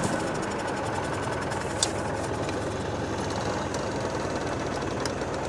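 IMR Rakovica 60 tractor's diesel engine running steadily with a fast, even chugging while pulling a plough through the soil. A faint click about two seconds in.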